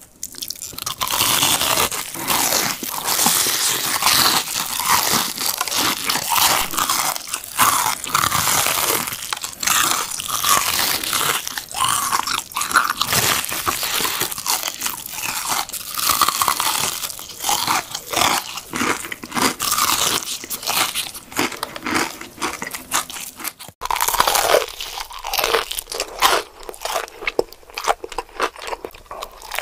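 Close-miked crunching of crispy battered fried chicken being bitten and chewed: dense, irregular crackles of the coating breaking, one after another. A brief break comes about three-quarters of the way through, then the crunching carries on with less low end.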